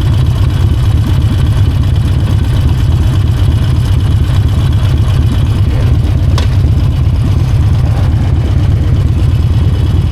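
Harley-Davidson Forty-Eight's air-cooled V-twin running steadily under way, a deep, loud rumble picked up by a mic inside the rider's helmet. A single short click about six seconds in.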